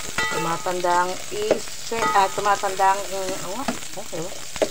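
Onion, garlic and ginger sizzling in hot oil in an aluminium pot while a metal ladle stirs them, with a few sharp scrapes and clicks of the ladle against the pot. A wavering melody sounds over the sizzle twice.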